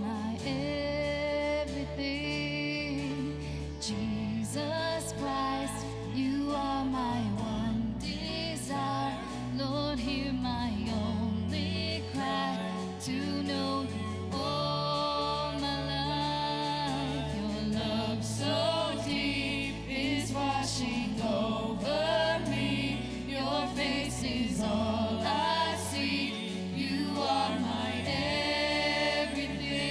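Christian worship music: voices singing over a band, with sustained low notes and regular percussive hits.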